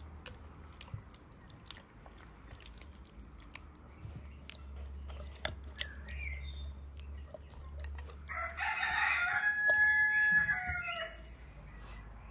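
A rooster crows once, the loudest sound, a drawn-out pitched call from about eight seconds in lasting nearly three seconds. Before it come soft wet squishes and small clicks of hands rubbing a thick marinade into a raw whole chicken on a metal tray.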